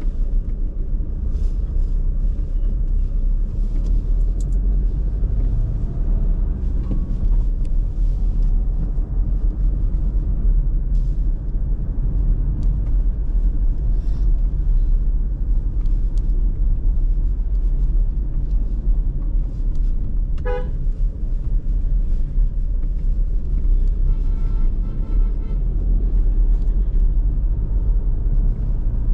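Car on the road: a steady low rumble of engine and tyres, with a short car horn toot about two-thirds of the way through and another, pulsing horn a few seconds later.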